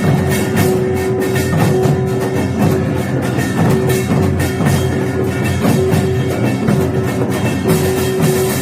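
Samulnori percussion ensemble playing a fast, dense rhythm on drums and gongs, with a tone ringing on and off beneath the strokes.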